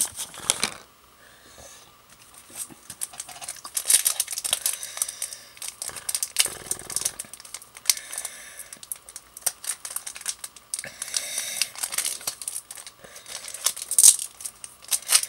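Packaging crinkling and tearing by hand, with many irregular crackles and clicks as it is handled.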